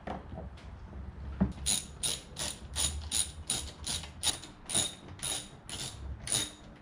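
Hand ratchet tightening a bolt on a motorcycle's fuel tank: a knock, then about fourteen short ratcheting bursts in a steady rhythm of roughly three a second.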